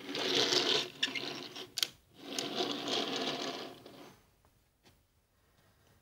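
Small toy train wagons rolled along a wooden desktop, their wheels whirring in two runs, one of about a second and one of about two seconds, stopping about four seconds in.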